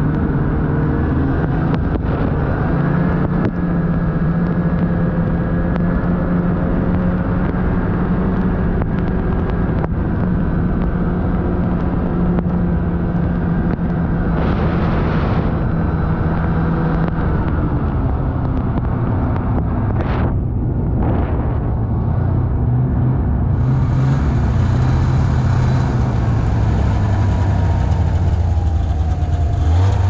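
Snowmobile engine running steadily under way, its pitch dropping about halfway through and falling again near the end as it slows.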